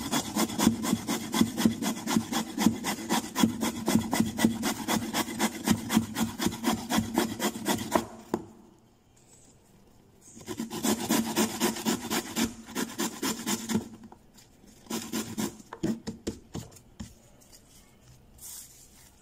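Carrot being grated on a stainless steel box grater: quick rasping strokes, about three a second, in a long run, then a second run after a short pause, then a few scattered strokes.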